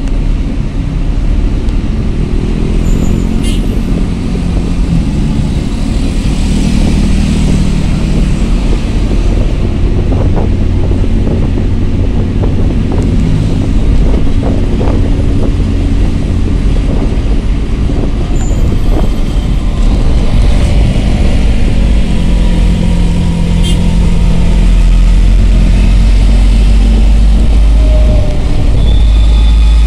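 Engine and road noise of a moving angkot minibus heard from inside it, a loud steady low rumble whose engine note rises and falls as it changes speed. The deep rumble grows heavier in the last few seconds.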